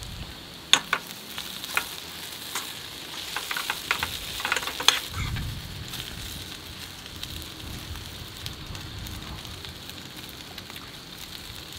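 Meat and onions sizzling steadily in a stainless frying pan on a portable gas stove. A metal spoon clinks sharply a few times in the first half, then the food is stirred and scraped around the pan.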